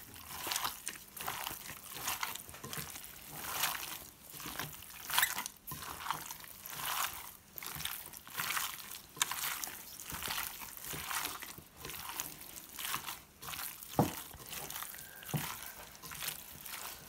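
A gloved hand kneading thin slices of raw seasoned beef in a glass bowl: soft, irregular squelches of wet meat every second or so, with two light clicks near the end.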